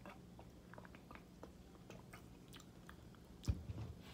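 A person drinking soda from a plastic bottle: faint gulping and swallowing with small wet mouth clicks. A single sharp thump about three and a half seconds in, with a softer bump just after.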